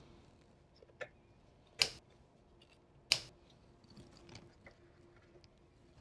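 Two sharp plastic clicks about a second and a half apart as a DDR4 memory module is pressed down into its DIMM slot and the slot's retention tabs snap shut: the sign that the module is fully seated. A smaller click comes just before them.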